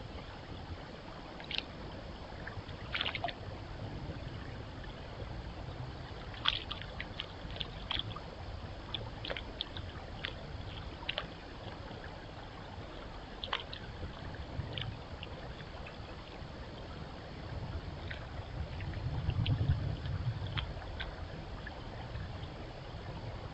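White-tailed deer fawn wading in shallow pond water: scattered small splashes and sloshing steps over the steady hiss of a trail camera's microphone. A low rumble swells up about nineteen seconds in.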